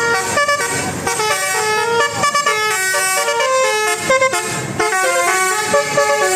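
Basuri 'telolet' multi-tone bus horn playing a fast melody, its notes jumping from pitch to pitch every fraction of a second.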